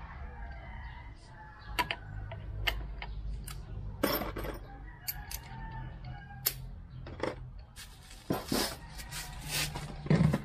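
Irregular clicks and clinks of metal hand tools being handled and knocked together, with a cluster of scraping strokes near the end, over a faint low steady hum.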